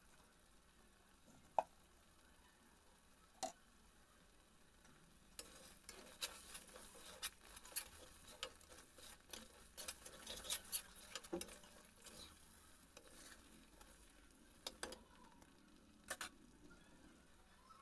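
Faint stirring of a thick onion-spice masala with red chilli powder in a stainless steel kadai: the spatula scrapes and taps against the pan, with light sizzling of the frying paste. Two sharp clicks come in the first few seconds, then a quick run of scrapes and taps for several seconds from about five seconds in, dying down to a few taps near the end.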